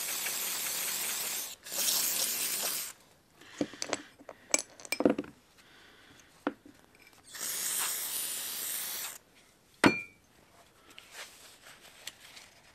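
Aerosol cleaner sprayed in three hissing bursts to degrease a chainsaw engine and clutch. Between the bursts a shop towel rubs and small metal parts clink, with one sharp clink that rings briefly about ten seconds in.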